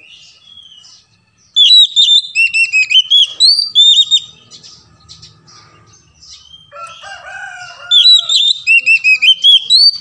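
Oriental magpie-robin (kacer) singing: two loud runs of quick, repeated whistled notes, each about two to three seconds long, starting about one and a half seconds in and again at eight seconds, with fainter chirps between. A lower-pitched call sounds briefly about seven seconds in.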